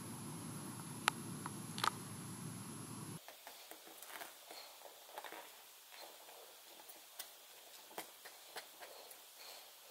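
Steady low hiss with two sharp clicks. After a cut about three seconds in come light, scattered clicks and ticks of small metal parts being handled: thin steel rods and rolled stainless mesh against a brass lantern generator tube.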